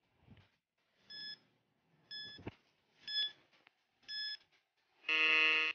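Countdown timer sound effect: four short, evenly spaced beeps about once a second, then a longer, fuller end tone as the timer runs out.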